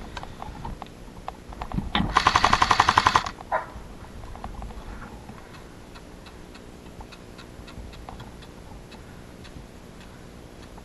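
An airsoft gun fired in a full-auto burst lasting a little over a second: a fast, even rattle of shots, roughly a dozen or more a second. Faint scattered ticks follow.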